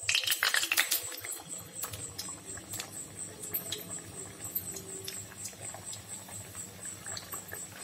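A raw stuffed kachori slipped into hot oil in a kadhai sizzles loudly at first, then settles into steady fine crackling and bubbling as it deep-fries; another kachori is lowered in near the end.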